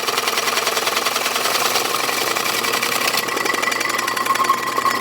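Large hole saw in a power drill cutting through the part, its teeth chattering fast and evenly over the steady whine of the drill motor.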